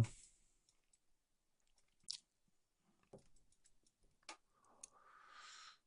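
Near silence with a few faint, sparse computer mouse clicks, and a faint hiss near the end.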